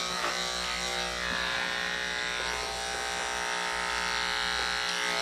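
Cordless electric dog clipper running with a steady buzzing hum as it clips a Standard Schnauzer's coat.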